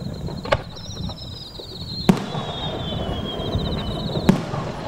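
Fireworks going off: three sharp bangs, the loudest about two seconds in and another near the end, with a long whistle falling slowly in pitch between them.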